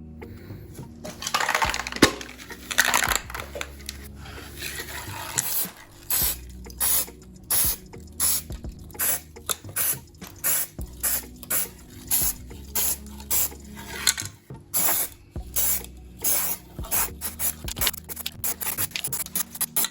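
Abrasive rubbing by hand on a small model car part: a few seconds of continuous scraping, then regular back-and-forth strokes, about two a second.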